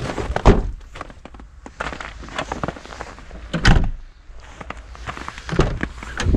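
Several knocks and thumps with small clicks between them, the loudest a little under four seconds in.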